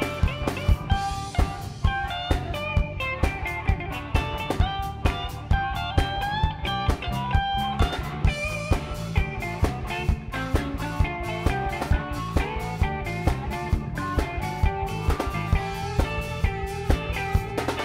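Live blues band playing an instrumental passage: an amplified harmonica, cupped against a hand-held microphone, plays lead over electric bass, guitar and a drum kit keeping a steady beat.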